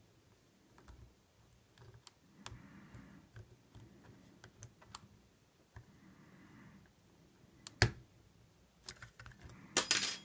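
Lock pick and tension wrench clicking and scraping in the keyway of a brass Wilson Bohannon U.S. Navy padlock as it is picked without a key: scattered light clicks, a sharper click a little before the end, and a short louder rattle right at the end.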